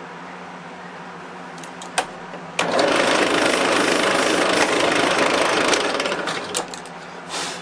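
A power tool cutting or shaping small G10 spacer pieces: a loud, rasping run of about four seconds that starts suddenly, after a click, and eases off near the end, over a steady low hum.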